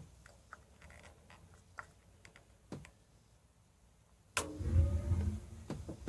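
Thermostat dial on a gas water heater's control valve being turned, giving a scatter of faint clicks. A little over four seconds in, a sudden click is followed by a low rumble.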